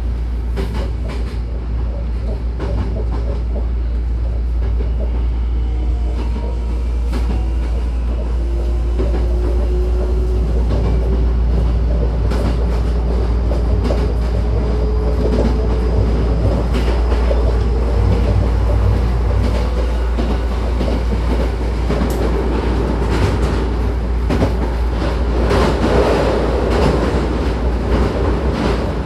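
Cabin noise of a Hankyu 9000-series electric train running: a steady low rumble with wheels clicking over rail joints, and a faint whine that rises slowly in pitch during the first half.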